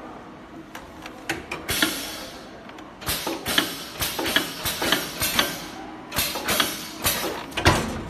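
Thin plastic film sheets handled on a bag-making press: irregular crinkling and rustling with many sharp clicks, busiest in the second half, and a heavy thump near the end.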